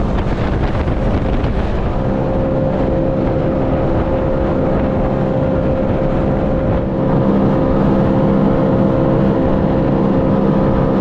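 Sea-Doo FishPro Trophy jet ski running at a steady speed over the water: a steady engine drone mixed with the rush of wind and water. The engine tone settles into a constant pitch about two seconds in.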